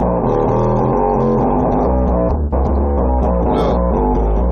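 Loud, bass-heavy music with guitar, played through a JL Audio 10W7-3 10-inch subwoofer driven hard by a high-power amplifier.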